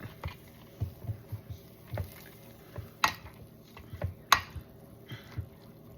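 Masher pressing soft roasted cherry tomatoes and melted cheese in a baking dish: irregular soft thuds with a few sharp clacks of the masher against the dish, loudest about three and four seconds in.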